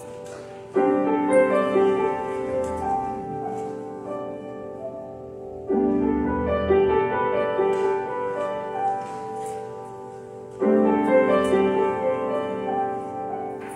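Grand piano playing slow offertory music. There are three phrases, each opening with a loud chord (about a second in, near six seconds and near eleven seconds) and then dying away as the notes ring on.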